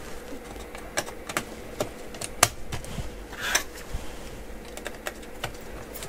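Sharp plastic clicks and taps as SO-DIMM RAM modules are handled and pressed into a laptop's memory slots, irregular like typing, with a brief scrape about three and a half seconds in.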